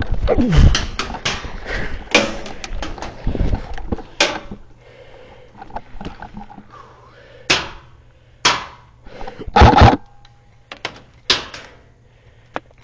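HPA airsoft rifle (a semi-locked M4) firing single shots: sharp cracks at irregular intervals, about half a dozen after a dense cluster of clicks and knocks in the first few seconds.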